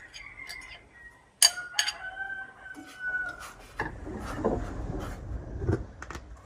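A rooster crows once, a long held call starting about a second and a half in, just after a sharp clink. In the second half a metal ladle stirs and knocks in a stainless steel pot of shrimp and water.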